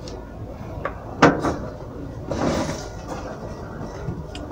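A sharp knock a little over a second in, then a brief rustling scrape.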